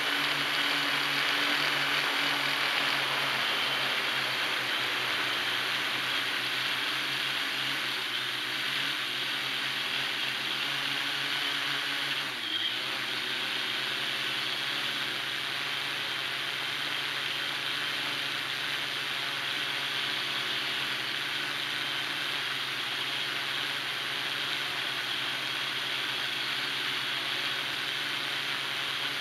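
Hexacopter's brushless motors and propellers whirring steadily in flight, heard up close from a camera on the frame: a steady hum of several motor tones under the propeller noise, with a brief dip about twelve seconds in.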